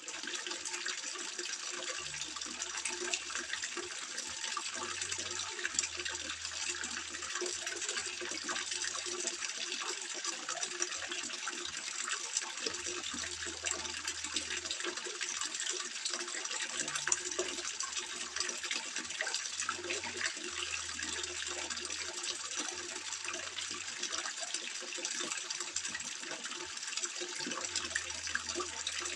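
Water trickling and splashing steadily into a koi pond, a continuous even rush with no breaks.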